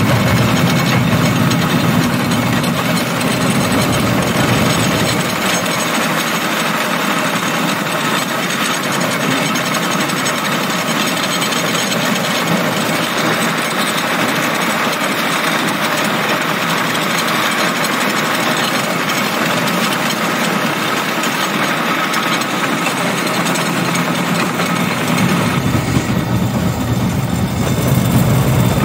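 Motorized rail cart running along the track: its small engine runs steadily under a continuous rattle of the wheels on the rails. The deep rumble drops away about five seconds in and comes back near the end.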